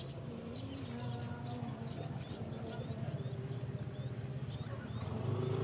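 Birds chirping in short, repeated high notes, over a steady low hum and faint held droning tones in the background.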